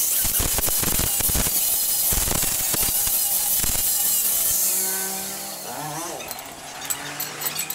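Angle grinder with a cut-off disc cutting through square steel tubing, a harsh steady grinding noise. About four and a half seconds in it is switched off and winds down with a falling whine, followed by a few small clicks.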